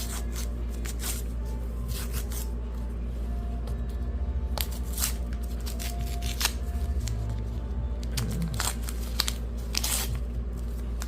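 Packaging being torn open and handled: a run of short rustles, tears and scrapes, with the sharpest ones about five and ten seconds in.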